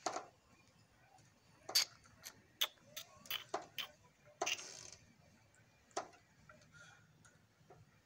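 Cats' paws and claws tapping and clicking against a glass sliding patio door and its metal track: about ten sharp, irregular clicks, bunched in the middle few seconds, with a last one about six seconds in.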